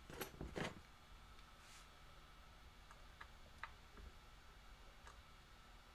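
Small metal clicks and taps of hand tools working on an electric guitar's Floyd Rose tremolo hardware during string removal: two sharper clicks right at the start, then a few faint scattered ticks over near-silent room tone.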